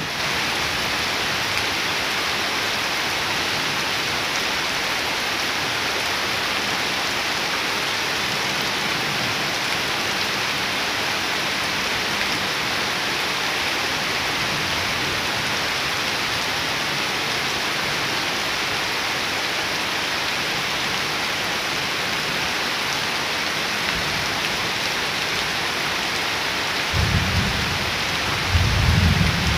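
Heavy rain pouring steadily onto standing water and leaves, an even hiss of countless drops. Near the end, low rumbles of thunder swell in twice.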